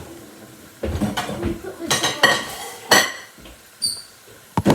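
Plates and cutlery clattering as dishes are handled and set down: a series of sharp knocks and clinks, a couple of which ring on briefly.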